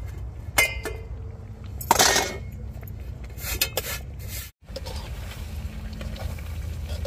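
A metal spoon or ladle clinking and scraping against a metal cooking pot several times, the loudest strike about two seconds in with a short ring, over a steady low hum.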